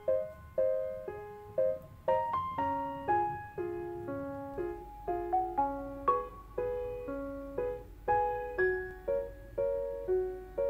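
Gentle background piano music: single struck notes and small chords, about two a second, each fading before the next.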